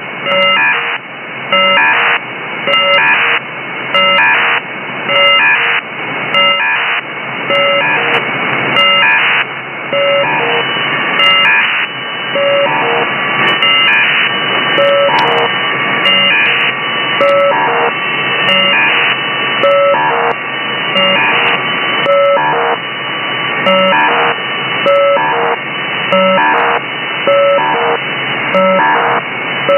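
An unidentified 'strange' signal received over radio on a software-defined radio receiver. It is a buzzing pattern of tones that repeats about once a second over steady radio hiss.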